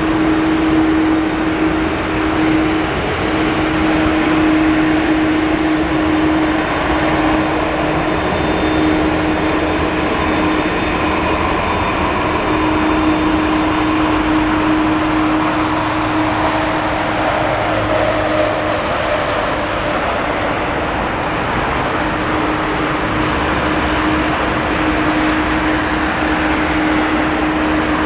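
Airbus A330-300 jet engines running, a steady roar with a constant hum that drops out and returns several times.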